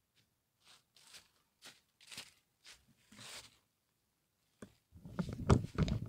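Footsteps crunching through dry fallen leaves, coming closer at about two steps a second. In the last second or so, louder bumping and rustling of the camera being picked up and handled.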